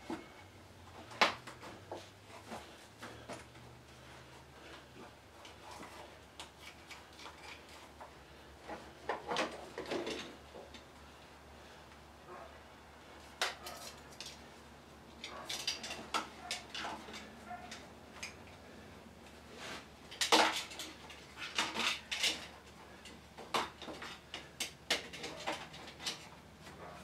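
Scattered metal clinks, knocks and short bouts of clatter from tools or hardware being handled and set down, loudest toward the end.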